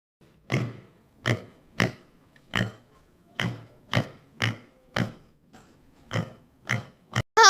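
Domestic pig grunting: about a dozen short grunts, one or two a second.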